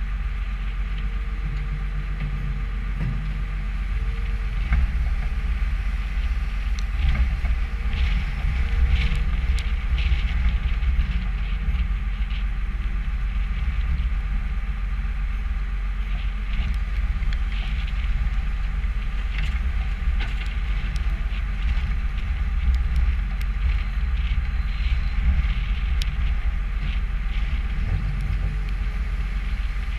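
New Holland skid steer loader's diesel engine running steadily, with scattered clanks and rattles from the machine.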